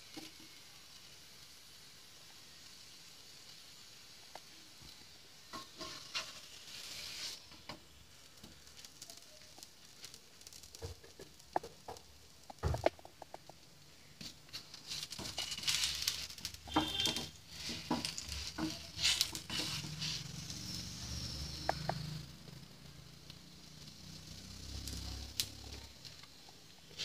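Aloo paratha frying in ghee on a nonstick tawa, sizzling quietly, with a spatula scraping and tapping on the pan as the paratha is turned and pressed. The spatula sounds start about five seconds in and are busiest in the second half.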